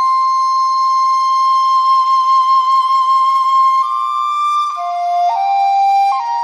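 Chinese bamboo flute (dizi) holding one long note for about four seconds, then moving through a few short stepped notes.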